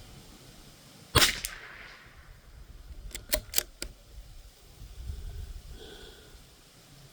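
A Winchester Xpert .22 LR bolt-action rifle fires one shot about a second in. About two seconds later comes a quick run of four sharp clicks as the bolt is worked.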